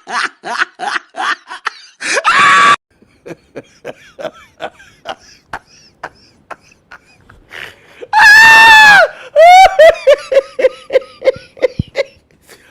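A person laughing in bursts: rapid rhythmic laughs at first, then a quieter stretch, a loud high-pitched shriek of laughter about eight seconds in, and a run of quick 'ha-ha-ha' pulses after it.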